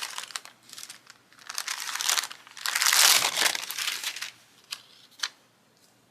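Paper sticker sheets rustling and crinkling in bursts as they are handled, with two light taps near the end.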